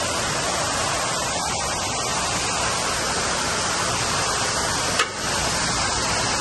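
Steady hissing rush of falling water, with rain just starting on the cooling tower. A single short tick about five seconds in.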